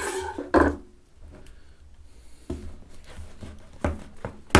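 Handling of a smartphone's cardboard retail box on a table as it is being opened: a thump about half a second in, then light knocks and rubs, and a sharp tap near the end.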